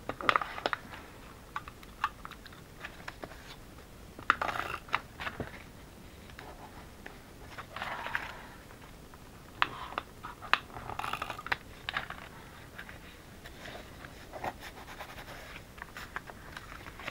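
Stiff brown paper-bag paper crinkling and rustling as it is folded into an envelope, with short scrapes and clicks in bursts, a few of them from a tape runner pressed along the flaps.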